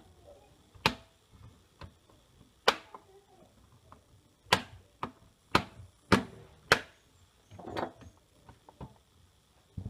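Plastic clips of an Asus laptop's keyboard top case snapping into place as it is pressed down along its edges: a series of sharp clicks at irregular intervals.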